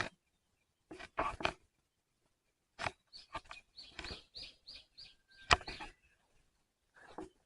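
A small bird chirping a quick, evenly spaced run of about six short high notes, over irregular clicks and rustles; the sharpest click comes about five and a half seconds in.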